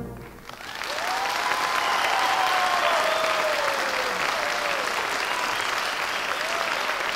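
Audience applause that swells up about a second in as the orchestral music stops, with a few long drawn-out cheers rising and falling over the clapping.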